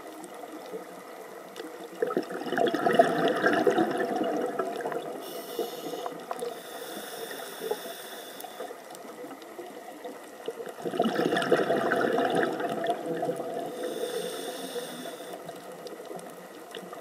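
Scuba regulator breathing underwater: two slow breaths, each a burst of exhaled bubbles lasting a few seconds, then a high hissing inhale with faint whistling tones.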